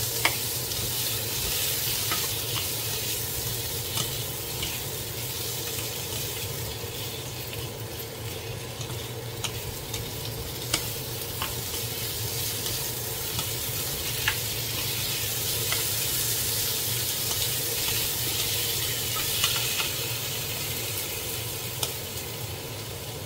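Sliced Korean zucchini and onion sizzling in a nonstick frying pan as they are stirred with wooden spoons, with a steady hiss and scattered sharp clicks of the wood tapping the pan.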